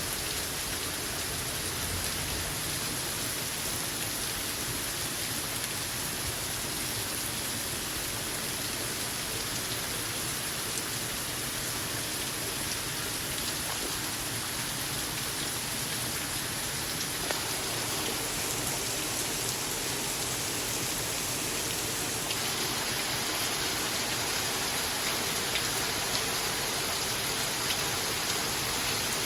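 Heavy rain pouring down in a flash-flood downpour: a steady hiss with scattered drop taps, growing a little louder about two-thirds of the way through.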